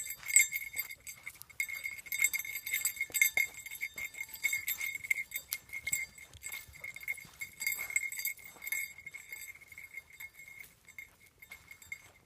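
A small bell on a basset hound's collar jingling continuously as the dog trots and noses through brush, its ringing pulsing with each step, with scattered crackles of dry brush.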